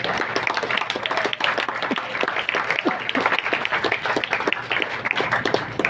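Audience clapping and applauding.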